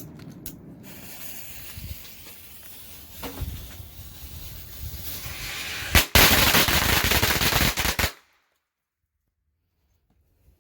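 A string of firecrackers going off: a hiss builds for several seconds, then a sharp bang about six seconds in starts a dense, rapid run of cracks lasting about two seconds, which cuts off suddenly.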